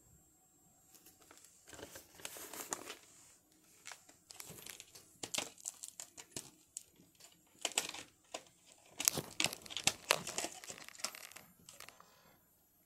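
Plastic VHS clamshell case being handled and opened, with irregular crinkling, crackling and clicking, the cassette taken out. The handling starts about a second in and comes in clusters, busiest near the end.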